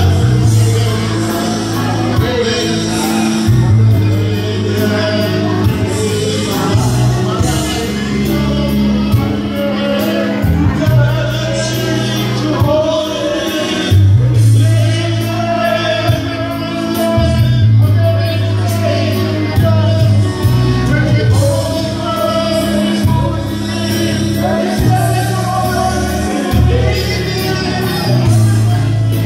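Karaoke: a man singing into a microphone over a backing track with a steady, changing bass line, his voice amplified.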